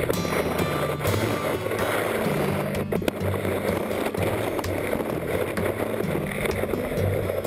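Skis sliding and scraping over snow on a fast descent, heard as a steady rushing noise from a camera mounted low by the boot. Background music with a bass line runs underneath.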